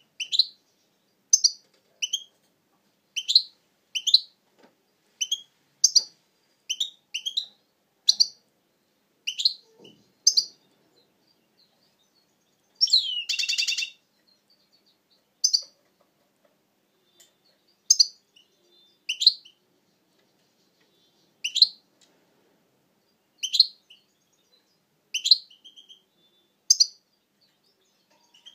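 European goldfinch giving short, sharp high-pitched call notes, mostly about once a second with a few pauses, and one longer buzzy note lasting about a second near the middle.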